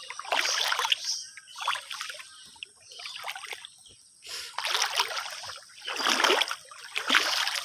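Muddy canal water sloshing and splashing in repeated surges as a person wades through it.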